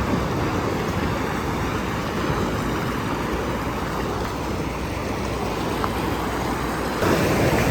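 Steady rushing of moving water, with wind buffeting the microphone; it grows louder about seven seconds in.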